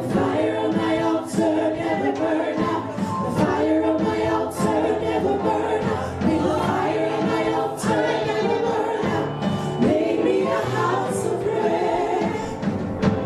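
Gospel music: a choir singing sustained chords with instrumental accompaniment.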